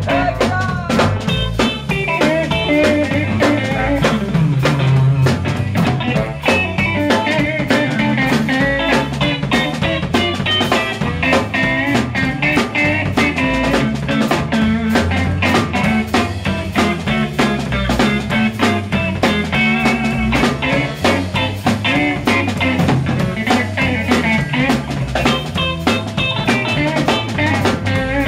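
Live rock and roll band playing an instrumental passage with no singing: electric guitars over bass and a drum kit keeping a steady beat.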